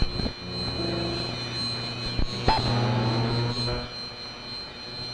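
Intro sound effect: a steady low drone with a high steady whine, sharp hits near the start and about two and a half seconds in, and a slowly rising tone that fades toward the end.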